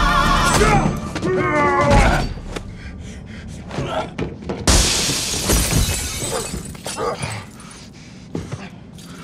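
A song with a wavering sung voice stops about two seconds in. Scattered knocks follow, and near the middle a loud crash of breaking glass fades out with a trailing clatter.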